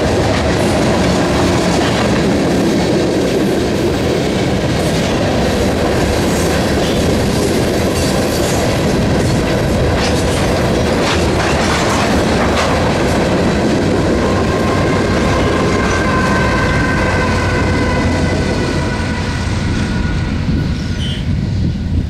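Freight train cars rolling past, wheels clicking over the rail joints in a steady clickety-clack. A thin, high wheel squeal comes in over the second half, and the rumble starts easing off near the end as the train moves away.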